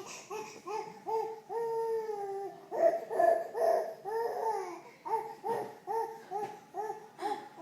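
Baby babbling: a long, drawn-out high-pitched vocal early on, then a run of short repeated syllables, about three a second.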